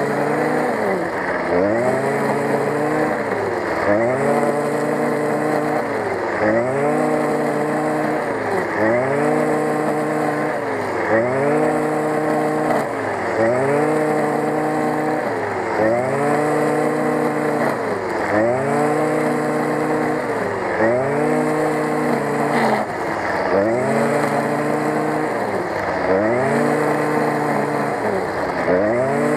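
Stihl FS 55 brush cutter's small two-stroke engine running at cutting speed with a nylon line head. The engine pitch repeatedly dips and climbs back about every two seconds as it cuts grass.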